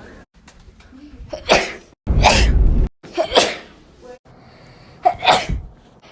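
Human sneezes, about four in a row, each a sharp sudden burst. The loudest, about two seconds in, lasts nearly a second and is heavy in the low end.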